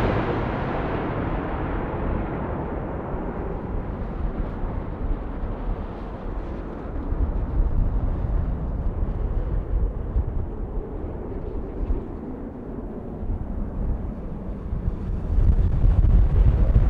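Low rumble of jet aircraft engines, dying away after a passing whine and swelling again near the end, with wind buffeting the microphone.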